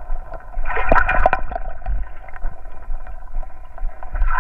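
Water sloshing and gurgling as a perforated sand scoop is worked at the water surface to sift out its load, with a few sharp clicks and rattles about a second in.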